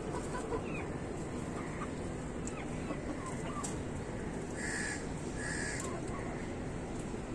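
Desi chickens clucking and chirping softly as they feed, with two loud, harsh calls about a second apart just past the middle.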